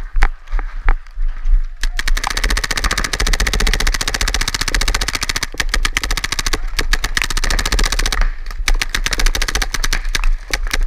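Paintball markers firing in rapid strings. Scattered shots turn into a near-continuous stream of pops about two seconds in, and this thins back to separate shots near the end.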